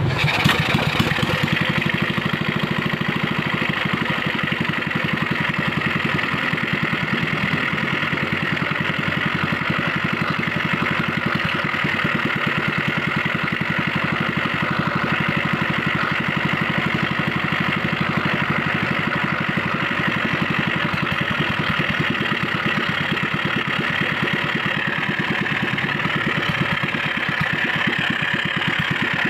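Engine idling steadily, a little louder in the first second or so.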